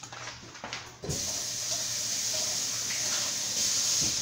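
Kitchen tap turned on about a second in, water running steadily into the sink, then shut off right at the end.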